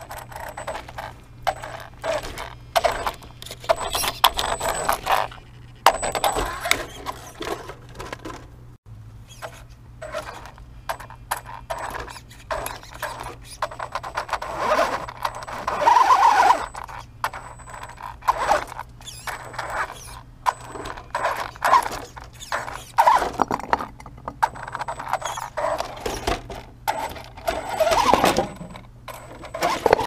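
Traxxas Stampede 4x4 VXL RC truck's brushless electric motor and gears whining in short bursts, rising in pitch twice, as the truck crawls over rocks. Dense clicks and clatters of its tyres, chassis and loose stones scrabbling on the rock.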